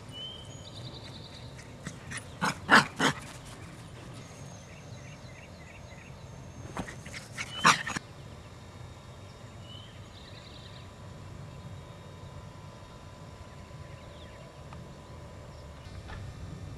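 Small dog barking: a quick run of three or four sharp barks about two seconds in, then a couple more a few seconds later. Faint bird chirps in the background.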